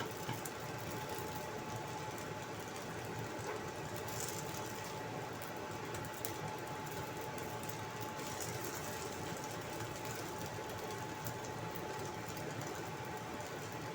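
Hot cooking oil sizzling in a thin wok as a batch of potato and carrot fritters fries, a steady hiss with small scattered crackles. A faint steady high tone runs underneath.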